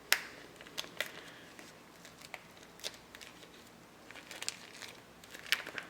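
Stretchy plastic waterproof phone skin crinkling in short, scattered crackles as a smartphone is worked into it through its small opening. There is a sharper crackle just after the start and a cluster of them near the end.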